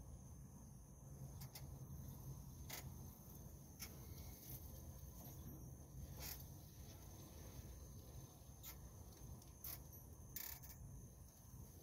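Near silence: faint outdoor background with a low steady hum and a few scattered soft clicks.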